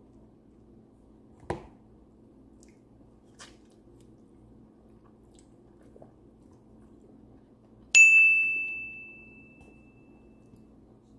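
A single bright bell ding about eight seconds in, ringing out and fading over two seconds or so: the notification-bell sound effect of a subscribe-button animation. Earlier comes one short soft knock, with a faint click after it.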